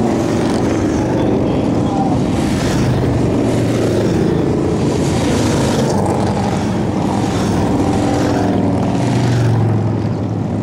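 A column of cruiser and touring motorcycles riding past one after another, their engines making a steady, loud mixed drone, with a bike swelling louder as it passes close about nine to ten seconds in.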